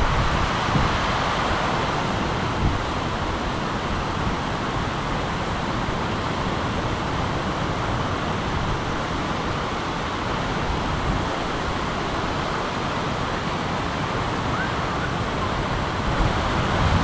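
Strong wind making a steady rushing noise, buffeting the microphone in low rumbling gusts at the start and again near the end.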